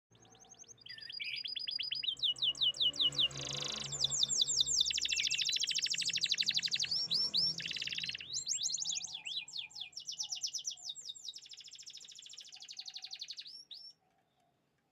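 Domestic canary singing a long song of rapid trills, switching from one trilled phrase to the next every second or two, and breaking off near the end.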